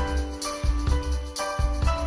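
Rock band playing an instrumental intro: grand piano and electric guitar over drums, with a steady kick-drum beat and a bright high percussion hit about once a second.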